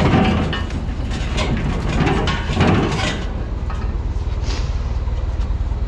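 Forklift engine running steadily while it moves a heavy machine, with scattered clunks and scrapes from the load, the loudest right at the start and again a little under three seconds in.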